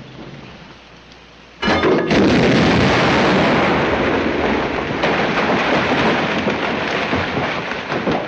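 Film sound effect of a large explosion, bursting suddenly about one and a half seconds in, followed by a long rumble that slowly fades.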